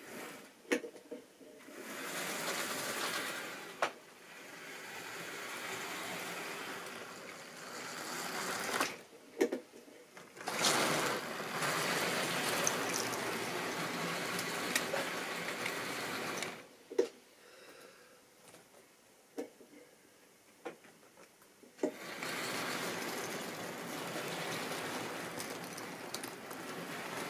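Model railway train running on its track: a steady rattle of wheels and running gear that swells and fades as the train passes close and draws away, quieter for several seconds past the middle, with scattered sharp clicks.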